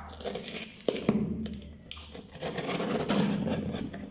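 Packing tape being peeled off a cardboard box in two long rasping pulls, with a sharp click about a second in.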